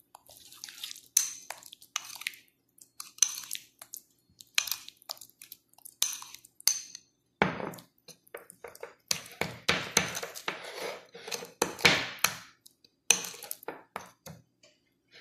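Metal spoon stirring a thick, oily spice paste in a ceramic bowl, scraping and clinking against the bowl in quick, irregular strokes. The strokes grow louder and come closer together past the middle.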